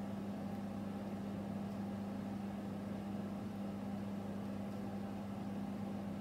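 Steady low electrical hum with a faint hiss, unchanging throughout: background room tone.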